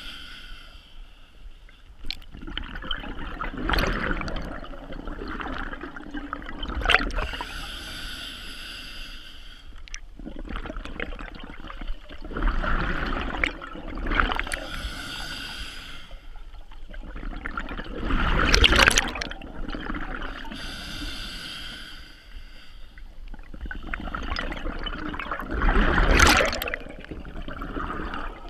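A scuba diver breathing through a regulator underwater. Each inhale draws a hiss through the regulator and each exhale sends out a loud rush of bubbles, a full breath every several seconds.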